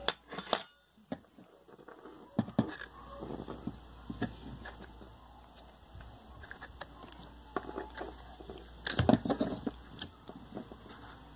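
Scattered clicks and knocks of a disassembled electric fan's motor parts being handled, with the loudest cluster of knocks about nine seconds in.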